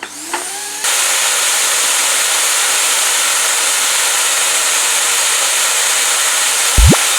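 Vacuum cleaner switched on about a second in and then running with a loud, steady hiss. Near the end a short, loud low sound drops quickly in pitch.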